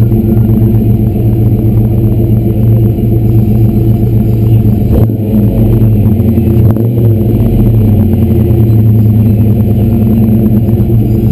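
1995 Ford Mustang GT's 5.0-litre V8 idling through a Flowmaster cat-back exhaust with stock mid-pipe and manifolds, heard right at the tailpipe. The idle is steady, with a brief shift in its note about five seconds in.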